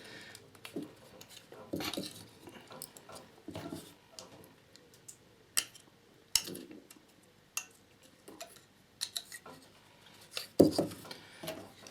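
Scattered light clicks and knocks of 18650 lithium cells being handled and pressed into a plastic battery-pack cell holder, with two sharper clicks around the middle and a cluster near the end.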